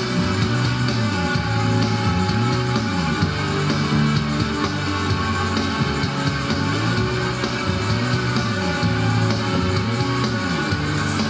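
Music with guitar and a repeating bass line, played from a Zune through the repaired Sansui SE-8 graphic equalizer and a Yamaha receiver into floor-standing hi-fi speakers, as a listening test of the EQ.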